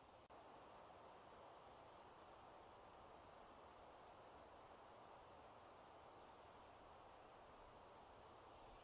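Near silence: faint woodland ambience, a steady soft hiss with faint, short, high chirps every second or two.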